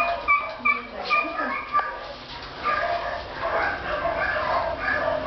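Dog whimpering and yipping in short, high notes, several in quick succession at first, then a looser run of whines.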